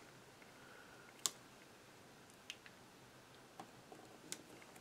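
Near silence broken by about four faint, sharp clicks, the clearest a second or so in: fingers and nails handling a cardstock card and stickers on a cutting mat.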